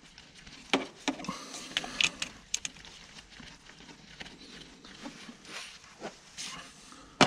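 Scattered light clicks and knocks of hands and parts being handled at a truck engine's thermostat housing as its bolts are taken out, with a sharper knock near the end.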